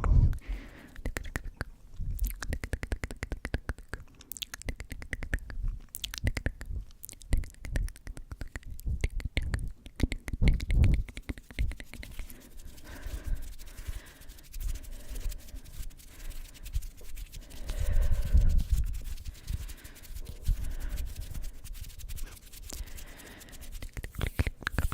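Close-miked ASMR triggers: quick runs of crisp clicks and rustles, several bursts of breath blown onto the microphone, and soft unintelligible whispering in the second half.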